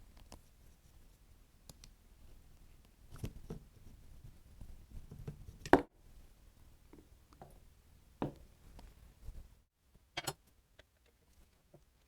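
Scattered clicks and knocks of tools and small metal parts being handled while a Kawasaki KM90 engine is taken apart, with one sharper knock about six seconds in.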